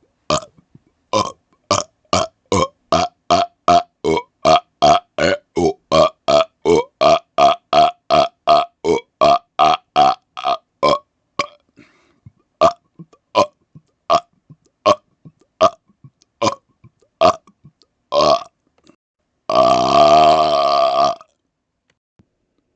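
A man burping rapid-fire, close to the microphone: a quick run of short burps, about three a second, that slows to about one a second, then one longer drawn-out burp near the end.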